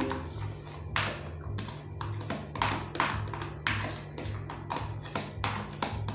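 A bag of sliced onion rustling and crinkling in short, uneven bursts as pieces are pulled out by hand and dropped into a bucket of blended beans, over background music.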